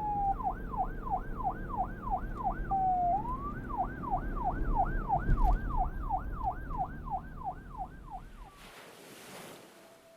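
Emergency vehicle siren in rapid yelp, sweeping up and down about three times a second, breaking briefly into a slower wail about three seconds in, over a low rumble. Siren and rumble cut off abruptly near the end, leaving a faint hiss.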